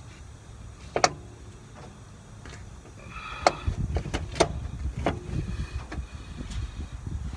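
Irregular metal clinks and knocks of a socket wrench and extension against bolts and metal parts, with low handling rumble: a sharp clink about a second in, then a quick run of clinks and clatter from about three and a half seconds.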